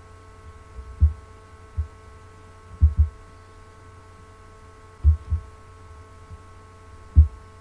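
Steady electrical hum with several fixed tones, broken by about seven dull, very low thumps at uneven intervals, two of them in quick pairs.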